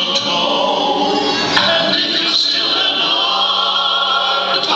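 Music with group singing, loud and continuous, with one low note held steady for over a second near the end.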